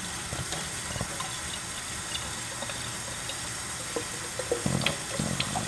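Thin stream of water from a kitchen faucet running steadily into a small glass bottle held under it, filling it to rinse it out. A few light knocks come near the end.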